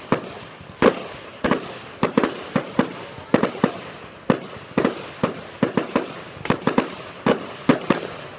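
Fireworks bursting in a rapid, irregular string of sharp bangs, about two or three a second, each trailing off in a short echo.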